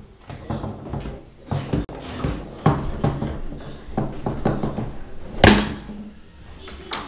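Foosball table in fast play: the hard ball clacking off the figures and table walls and the rods knocking, a rapid series of sharp knocks with one very loud crack about five and a half seconds in and another sharp one near the end.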